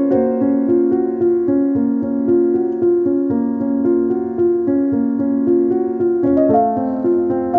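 Background instrumental music of held, overlapping notes, moving into a new passage about six seconds in.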